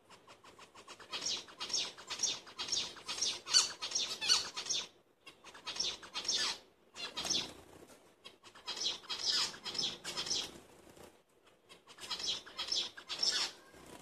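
Albino zebra finches flapping their wings and scuffling in a wire cage while fighting, in about four quick rustling bouts of one to three seconds with short pauses between.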